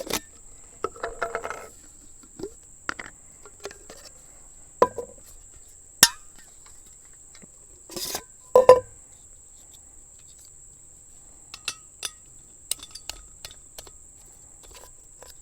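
Scattered clinks, clicks and knocks of a Jetboil camp stove and its pot being handled and assembled, the loudest a few seconds after the middle. A steady high-pitched insect drone of crickets runs underneath.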